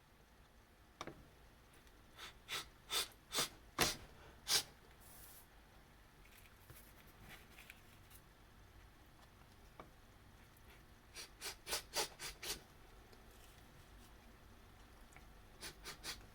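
A stifled sneezing fit brought on by sniffing chhinkni sneezing powder: short, sharp, held-in sneezes in three quick runs of several each, a few seconds apart, after a single one near the start.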